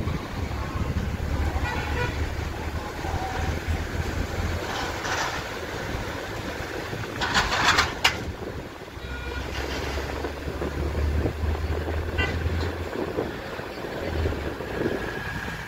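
Steady low rumble of a car's engine and road noise heard from inside the moving car, with car horns from surrounding traffic honking now and then, loudest about seven seconds in.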